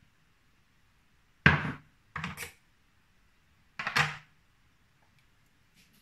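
A bowl and a knife being set down on a kitchen sink drainboard: three short knocks and clatters, the first, about one and a half seconds in, the loudest, and the last near four seconds in.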